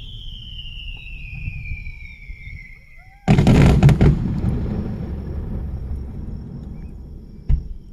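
Fireworks: a whistling shell with a falling whistle for about three seconds, then a loud burst with a long rumbling echo that fades out. A second, shorter bang comes near the end.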